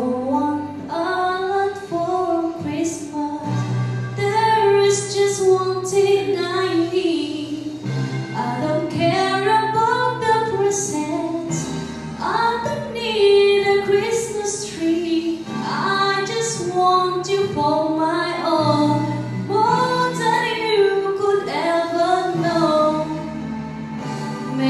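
A woman singing a Christmas carol over a backing track, with sustained low accompaniment notes under the melody.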